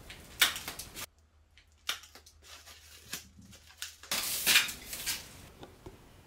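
Plastic packaging crinkling and rustling as the monitor's stand parts are unwrapped by hand: a few short crinkles in the first second, then a louder, longer rustle about four seconds in.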